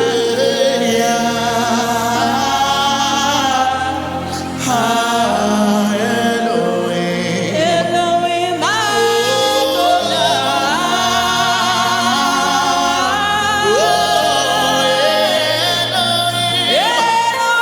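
Gospel worship music: a voice sings sliding, gliding runs over steady held accompaniment chords. There is a brief drop in loudness about four seconds in.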